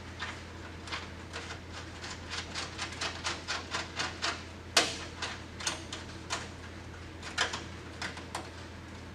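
A run of light metallic clicks and taps from hand tools and parts being handled during work on a truck's front brake and hub, with one sharper knock about five seconds in, over a steady low hum.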